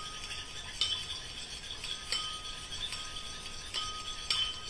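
A lemon and olive oil dressing being whisked by hand in a small bowl: steady stirring, with about four sharp clinks of the utensil against the bowl. Oil is being drizzled in to emulsify it into a thick cream.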